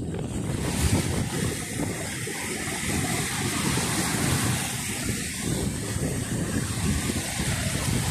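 Small sea waves breaking and washing over sand at the water's edge, with wind buffeting the phone's microphone in an uneven low rumble.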